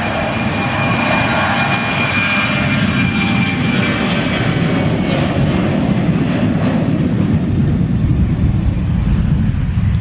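Boeing 737-900ER's twin CFM56-7B jet engines at takeoff thrust on the takeoff roll. It is a loud, steady rumble with a high fan whine that fades over the first few seconds, while the deep rumble grows toward the end as the jet rotates.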